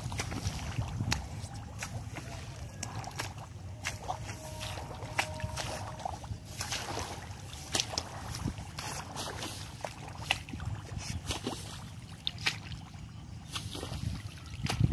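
Wading and a long-handled tool working through a flooded rice paddy: repeated splashes, swishes and sloshing of water and mud among the rice plants, in short, uneven strokes.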